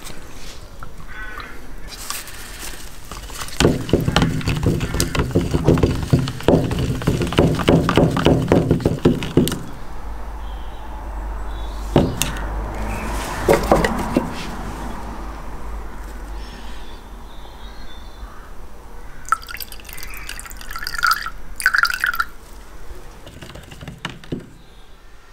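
Liquid glugging as it is poured from a metal tin into a plastic mixing cup of 2K clear coat. After that the mix is stirred with a metal rod, with a couple of sharp taps and some short scraping sounds.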